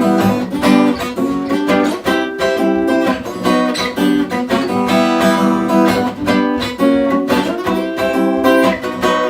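Acoustic guitar strummed in a steady rhythm, chords ringing: the instrumental close of the song after the last sung line.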